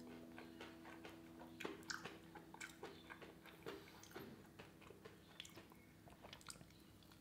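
Faint crackling of a fried chicken wing's crispy batter coating as it is torn apart by hand, a scatter of small irregular crunches and cracks.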